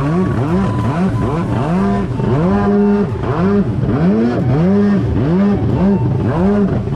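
Stand-up jet ski engine revving up and down over and over, its pitch rising and falling about twice a second as it runs through chop, with the rush of spray and wake water under it.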